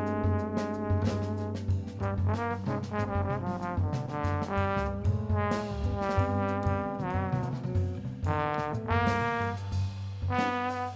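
Music: a single horn plays a jazz-style melody with a few pitch bends over a steady bass backing.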